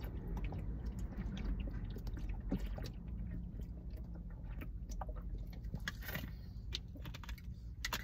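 A person gulping water from a plastic bottle, swallowing again and again with small wet mouth clicks, over a low steady hum.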